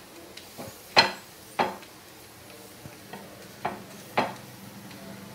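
Wooden spatula pressing and knocking a paratha against a hot tawa: four sharp knocks in two pairs, over faint sizzling of the ghee-brushed paratha cooking.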